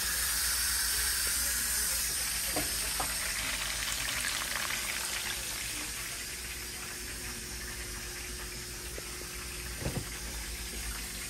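Instant Pot electric pressure cooker venting steam through its pressure-release valve after cooking: a steady hiss that slowly grows quieter. There are a few light knocks, one near the end.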